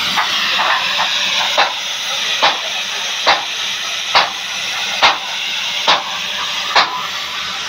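Oxy-fuel cutting torch on a portable motorised cutting machine, its flame jet hissing steadily as it cuts through thick steel pipe. Over the hiss come sharp clicks: quick faint ones at first, then regular strong ones a little under a second apart.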